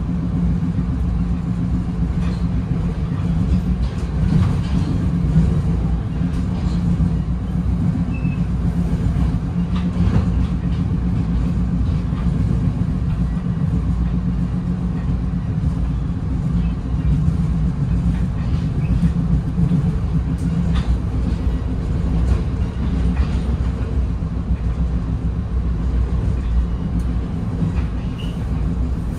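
Steady rumble and hum inside a Bombardier Comet IIM passenger coach running at speed, with wheels rolling on the rails and a few light clicks.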